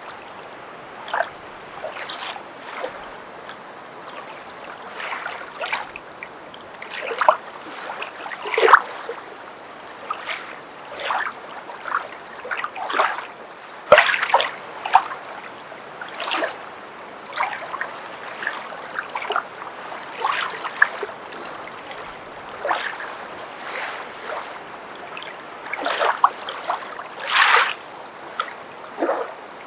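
Footsteps wading through water: irregular splashes and sloshes, about one or two a second.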